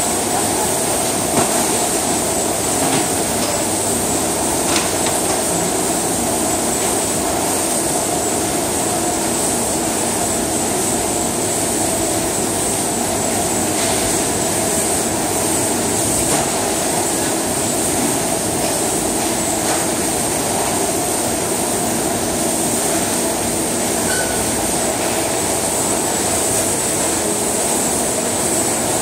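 Steady, loud din of processing-plant machinery running constantly, with a high whine and a lower hum held throughout, and a few faint knocks of work over it.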